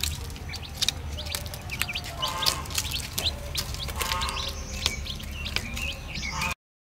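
Baby chicks peeping in many quick, high chirps while feeding, with scattered sharp taps of beaks pecking at the feed; the sound cuts off suddenly near the end.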